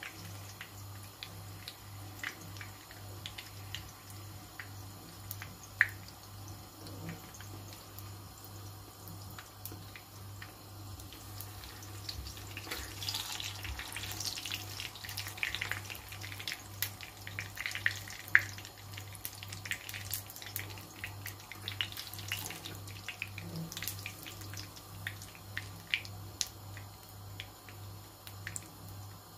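Pişi dough deep-frying in hot oil in a pan: the oil sizzles with scattered crackles and sharp pops. It gets busier for several seconds about halfway through, as a spoon bastes hot oil over the top of the puffing dough.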